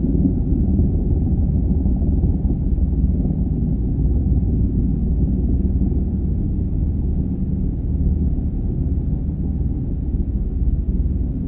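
Eurocopter EC145 twin-turbine helicopter hovering: a steady low rumble of its rotor and engines.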